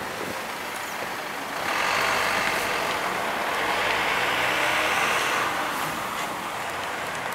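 Anadolu Isuzu Citiport 12 city bus standing at a stop, its engine running faintly. About two seconds in comes a steady hiss of released air that lasts around four seconds, typical of the bus's pneumatic system.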